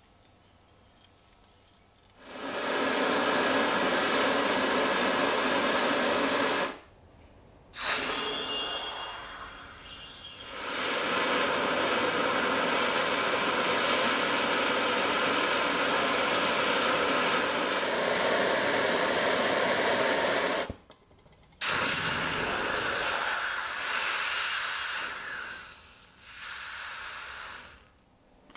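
Handheld gas torch flame hissing steadily as it heats the steel locking ring on the bayonet's socket until it glows. The hiss starts a couple of seconds in, cuts out twice for about a second and resumes, and is weaker and uneven near the end.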